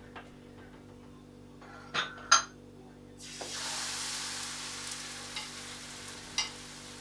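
Pancakes frying in a hot pan on a gas stove: two sharp clinks of kitchenware about two seconds in, then a loud sizzle that starts suddenly a second later and slowly dies down, with a few small ticks.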